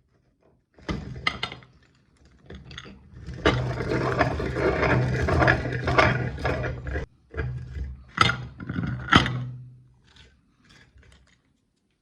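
Electric meat grinder running with a steady low hum while it crushes hard lollipop candy, which crackles and cracks sharply as it breaks. The grinding is densest in the middle, pauses briefly, then two loud cracks come before it fades out.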